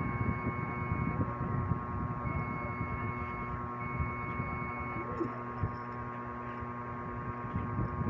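Dell OptiPlex desktop's motherboard speaker sounding a POST error beep: three long, steady high beeps, each about a second long, over a steady electrical hum. This is the fault sound of a PC that powers on but gives no display, which the owner puts down to dust on the RAM.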